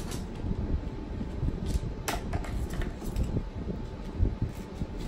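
Handling of school supplies, likely colored pencils going into a pencil case: a few light clicks and rustles over a steady low rumble, with the sharpest click about two seconds in.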